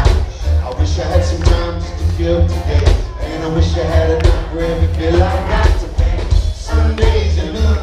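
Live band playing loudly with a singing voice over heavy bass and a steady drum beat.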